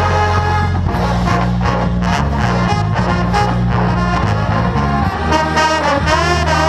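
Marching band playing a brass-heavy show tune, low brass holding long notes under the melody, with regular drum hits.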